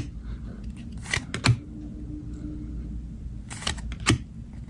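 Donruss football trading cards being flipped through by hand, the card stock giving a few short, sharp snaps and slides as cards come off the stack. A faint steady hum lies underneath.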